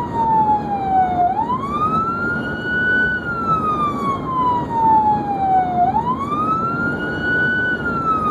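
Emergency vehicle siren on wail: a rising and falling tone that sweeps up quickly, then falls slowly, twice, about every four and a half seconds. Under it is the steady road and engine noise of the vehicle driving at speed.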